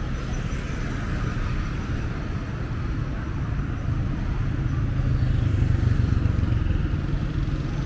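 Busy street traffic: the engines of passing cars and motorbikes run continuously. A low engine rumble swells louder past the middle as a vehicle passes close.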